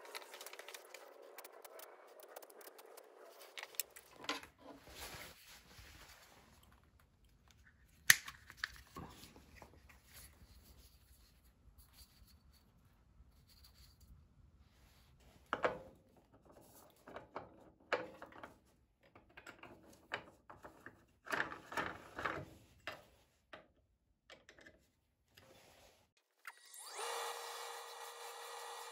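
Quiet workshop handling sounds: scattered clicks, taps and knocks of wood and hand tools being picked up and set down on a bench, the sharpest knock about eight seconds in. Near the end a wood lathe's motor starts and runs with a steady whine.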